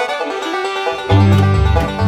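Background music with plucked strings; a deep bass line comes in about a second in.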